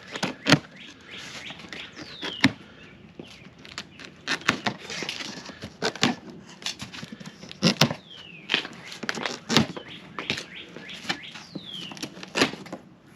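A cardboard shipping box and its packaging being handled and opened, with sharp knocks, scrapes and rustling. A few short, high squeals fall in pitch.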